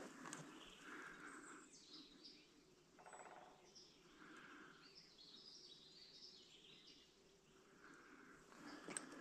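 Faint wild birds calling and singing, with repeated short calls and higher chirps, a buzzy call about three seconds in, and a few sharp clicks near the end.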